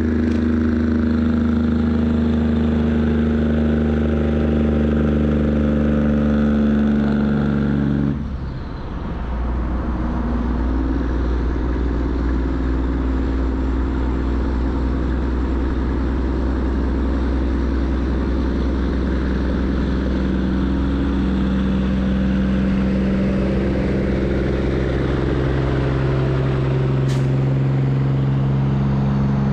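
Heavy truck engines running steadily. About eight seconds in the sound dips briefly and a different, lower engine hum takes over.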